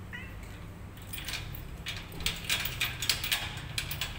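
Rapid metallic clicking and clattering that starts about a second in and grows busier, after one brief high mew from the tabby cat at the very start.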